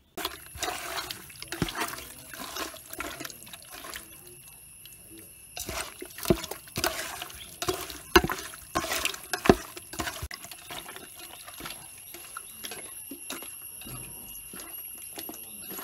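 Hands mixing raw chicken pieces with sunflower oil and ground spices in a steel pot: wet squelching and sloshing, with a few sharp knocks about eight and nine and a half seconds in.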